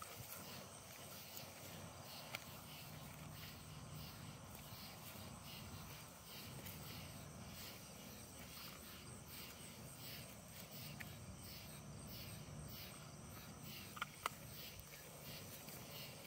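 Night insects chirping in a faint, steady pulsing chorus, with two sharp clicks close together near the end.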